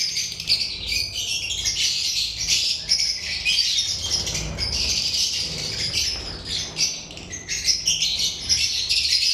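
Lovebirds chattering: a continuous, dense mass of high, rapid chirps from several birds at once.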